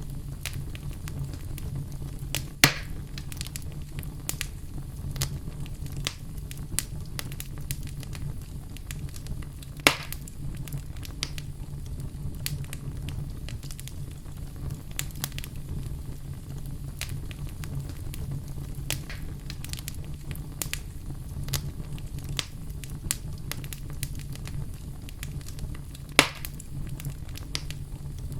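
Fire burning in a fireplace: a steady low rush with frequent small crackles and three louder pops, near the start, about a third of the way in, and near the end.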